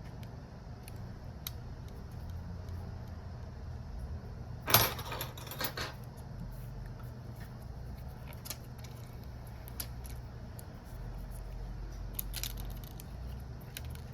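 Small tools and parts being handled on a phone-repair bench: one brief clatter of hard little objects about five seconds in, with a few scattered light clicks over a steady low hum.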